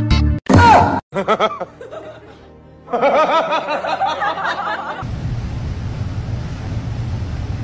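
Human snickering and laughter over background music, followed by a steady low hum from about halfway through.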